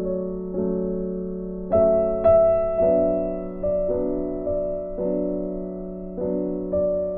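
Background music: slow, gentle piano chords, a new chord struck every half second to a second and left to fade.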